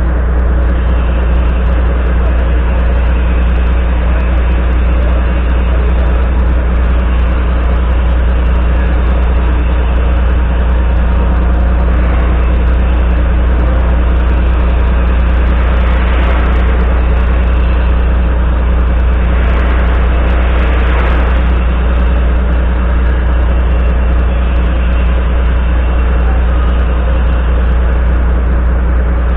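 Volvo FMX 440 tractor unit's diesel engine idling steadily, heard close to its upright exhaust stack, with a deep, even rumble.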